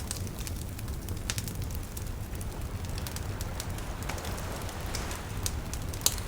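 Wood campfire crackling, with many small pops and ticks over the low steady rush of the flames, and one sharp, louder pop near the end.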